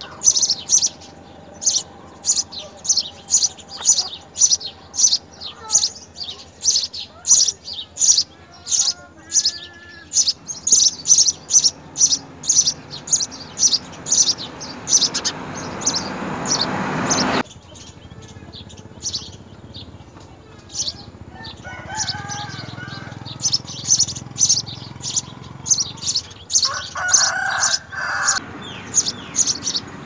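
House sparrows chirping: short, high chirps repeated about three times a second, with a rising rush of noise around the middle that cuts off suddenly.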